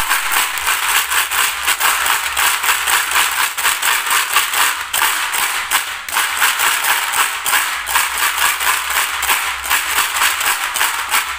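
Glass marbles and steel balls rattling and clacking against each other and the plastic bed of a toy dump truck as it is rocked by hand: a dense, unbroken clatter of small clicks.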